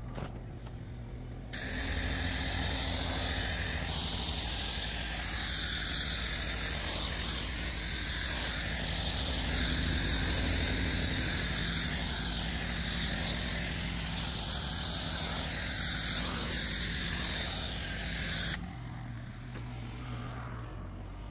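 A foam cannon on an electric pressure washer spraying foam onto a car: a loud, steady hiss that starts about a second and a half in and stops a few seconds before the end, over a steady low hum.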